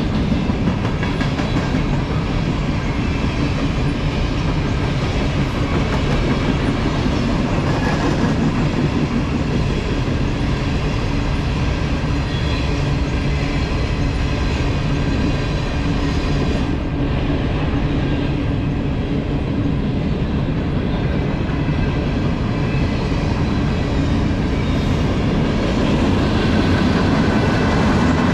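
Covered hopper cars of a grain freight train rolling past: a steady rumble of steel wheels on the rails.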